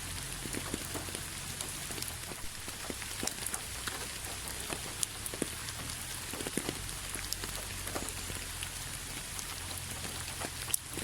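Steady rain falling on a hard surface, with many separate drops striking close by in irregular, sharp taps over the continuous patter.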